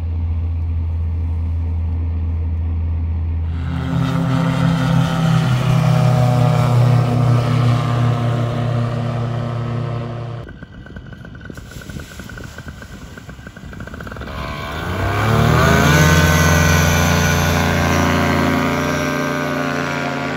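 Two-stroke paramotor engine running at a low steady speed, then stepping up louder and higher about three and a half seconds in. After a break near the middle, it is throttled up in a rising whine to a steady high power setting.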